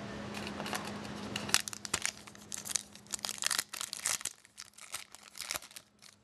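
Foil wrapper of a hockey card pack crinkling and tearing in the hands, a dense run of irregular crackles that starts about a second and a half in and dies away near the end.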